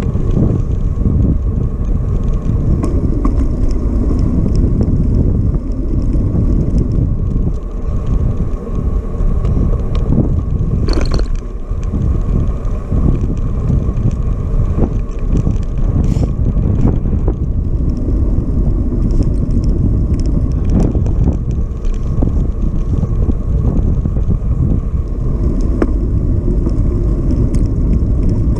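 Wind rushing over the microphone of a camera on a moving bicycle, mixed with the rumble of the tyres on tarmac. It is a steady low rush, broken by small clicks and rattles from the bike.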